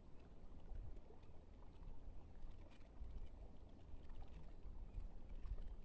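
Wind buffeting the microphone: a low, uneven rumble with a few faint ticks and rustles.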